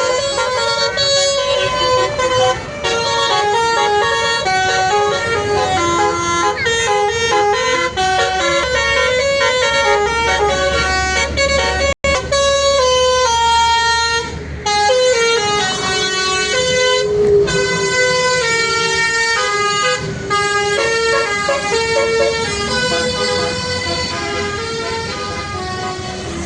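Basuri 'telolet' musical air horn on a bus, playing a tune as a run of held notes that step up and down in pitch. It breaks off for an instant about twelve seconds in.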